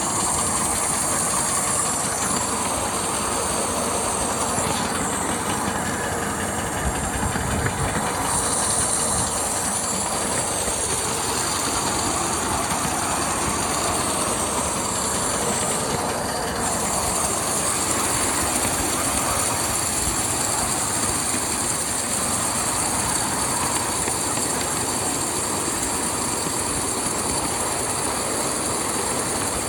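7¼-inch gauge Quarry Hunslet miniature steam locomotive on the move, wheels clicking over the rail joints under a steady hiss of steam, partly from a slightly leaking left-hand drain cock.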